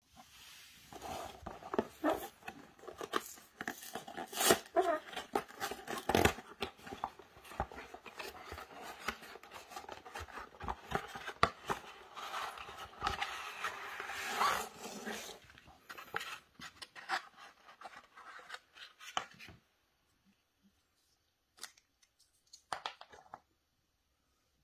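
Cardboard and plastic razor packaging being opened by hand: rustling, tearing and clicking for most of the clip, then thinning out to a few small clicks near the end.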